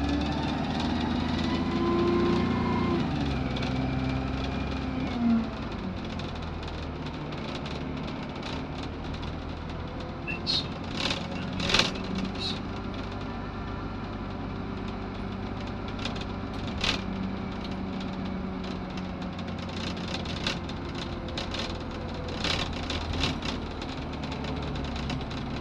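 Optare Solo SR single-deck bus heard from inside the saloon while driving: the engine's pitch drops a few seconds in as the revs fall, then it runs on at a steady drone. Scattered clicks and knocks come through now and then.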